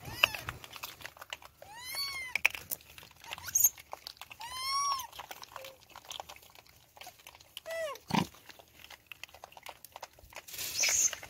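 Rhesus macaques calling: two drawn-out calls that rise and fall in pitch, then a shorter falling call, over small clicks and crunches of the monkeys picking at food on the stony ground. A brief harsh, hissy sound near the end.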